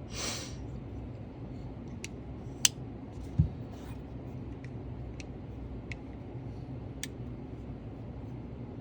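Sparse, sharp metallic clicks and ticks from a folding knife being handled, about half a dozen spread unevenly, after a short hiss at the start.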